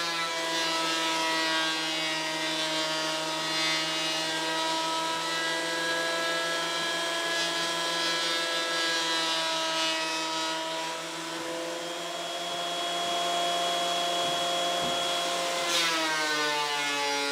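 Benchtop thickness planer running, its electric motor giving a steady whine while a board is fed through it. The pitch sags slightly partway through, and near the end there is a click and the whine glides down in pitch.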